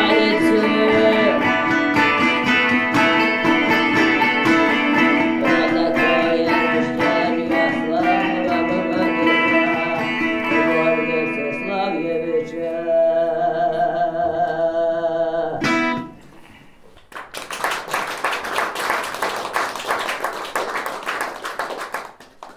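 Instrumental close of a folk song: balalaika plucking over steady held drone tones, stopping suddenly about two-thirds of the way through. A small audience then applauds for about five seconds.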